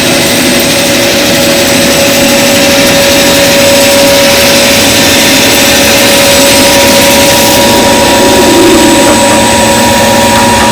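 ProtoTrak CNC lathe running a program, its spindle turning while the cutting tool machines the outside diameter of a part: a steady machine noise with a constant whine.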